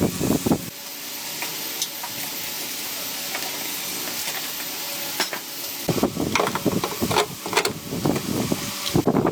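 A steady hiss for several seconds, then irregular knocking and scraping clatter from about six seconds in.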